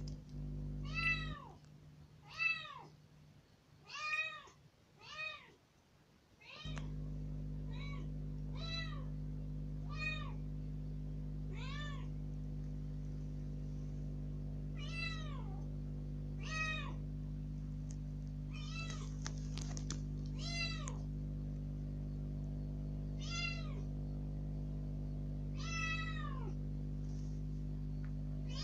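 Young kitten meowing loudly and repeatedly, one arched call rising then falling in pitch every one to three seconds, about fifteen in all: plaintive demand cries to be let out. A steady low hum comes in about six or seven seconds in.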